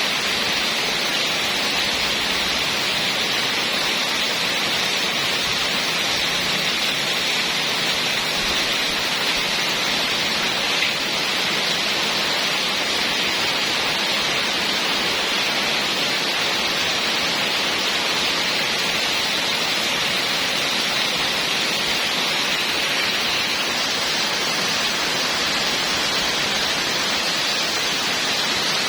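Heavy rain pouring steadily, an even hiss that does not change.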